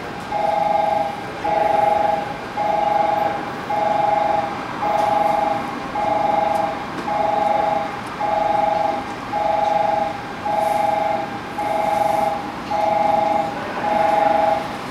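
Station platform train-approach warning: a two-note electronic tone repeating about once a second, sounding as a train approaches the platform.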